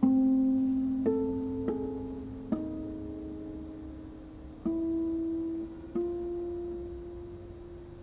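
Concert harp playing harmonics in a slow, sparse line: six single plucked notes, each left to ring and fade.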